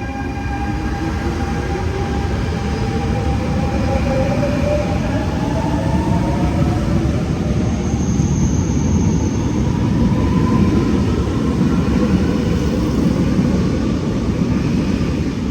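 MI 09 double-deck electric multiple unit pulling away, its traction motors whining in several tones that rise in pitch as it gathers speed. The rumble of the wheels on the rails grows louder.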